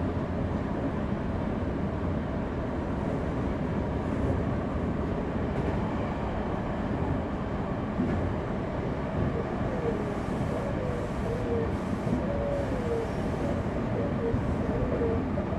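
Semboku Rapid Railway electric train running along the line, a steady noise heard from inside the front car. In the second half a faint wavering whine comes and goes as the train takes a curve.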